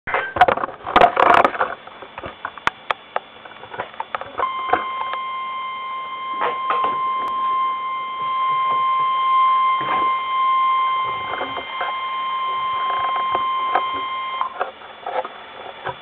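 NOAA Weather Radio warning alarm tone: a steady, single high beep of about 1050 Hz starting about four seconds in and held for about ten seconds, the signal that a warning broadcast follows. It is preceded by harsh noisy bursts in the first two seconds, with scattered clicks throughout.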